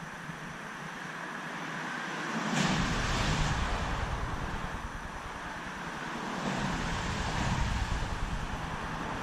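Road traffic passing over a bridge overhead: a steady hiss of tyre noise that swells into a low rumble as a vehicle passes about 2.5 s in, and again from about 6.5 s in.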